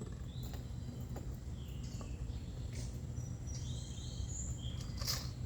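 Outdoor ambience: a steady low rumble with a few faint, short bird chirps and scattered faint knocks, and a sharper knock near the end.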